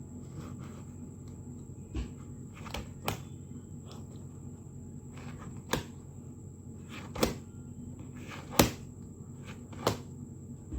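A plastic 7×7 Rubik's cube being handled and turned, giving about seven separate sharp clicks and knocks at irregular intervals, the loudest a little past the middle.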